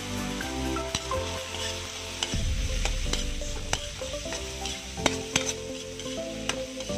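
Metal ladle stirring onion and ginger sautéing in oil in a steel wok, with a steady sizzle and sharp clinks of metal on the pan at irregular intervals.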